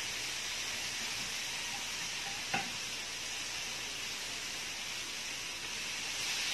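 Sliced chicken sizzling steadily on a round grill pan, with one sharp click about two and a half seconds in.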